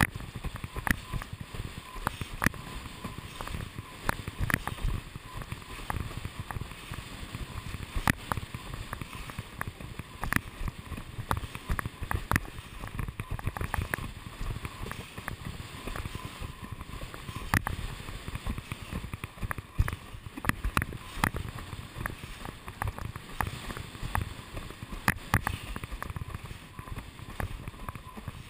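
A windsurf board sailing over choppy water: a steady rush of wind and water with frequent, irregular knocks as the board slaps the chop.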